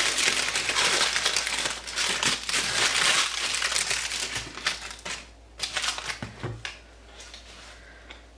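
Parchment paper liner crinkling and rustling as it is peeled off a freshly baked loaf by hand. The crinkling is dense for the first few seconds, thins to a few scattered crackles by about six seconds in, then stops.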